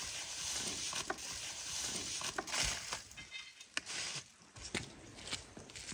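Aluminium foil crinkling and rustling as a large foil-wrapped beef leg is hauled up out of an underground tandoor pit on a metal hook, with a few sharp clicks and knocks along the way.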